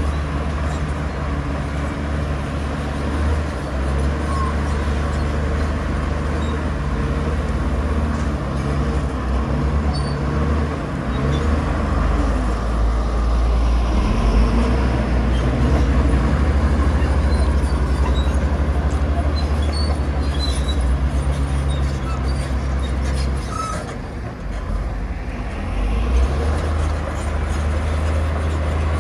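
Bulldozer's diesel engine running under load as it pushes soil, with a deep, steady engine note. The engine eases off about 24 seconds in and picks up again soon after.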